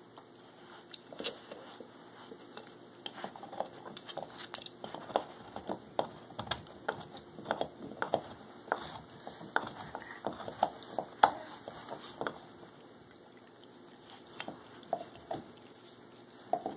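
Pit bull gnawing on a bone-shaped chew toy: irregular clicks and crunches of teeth on the chew, busiest through the middle and thinning out near the end.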